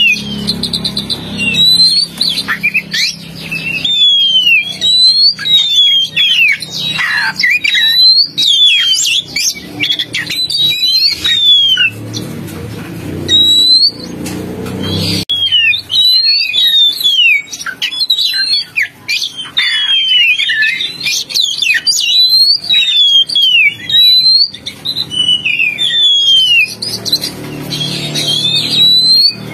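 Oriental magpie-robin (kacer) song played as a bird-lure recording: a rapid, continuous run of clear whistled notes, many sliding downward, mixed with chirps, with a brief lull about halfway through.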